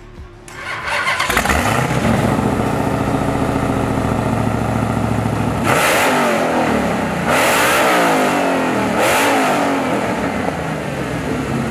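Mopar 'Hellephant' 426 cubic-inch supercharged Gen 3 HEMI V8 starting up about a second in and settling to a steady idle, then revved three times, each rev rising and falling in pitch, before dropping back.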